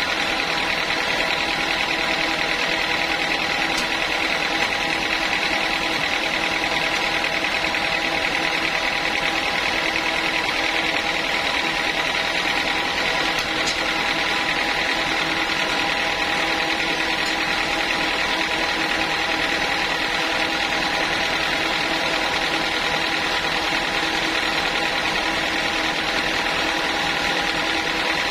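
Homemade band sawmill running steadily, a continuous machine drone with a high whine that holds one pitch throughout.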